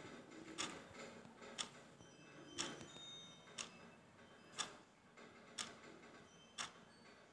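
Steady ticking, one short sharp tick about every second, with a few faint high tones in the background.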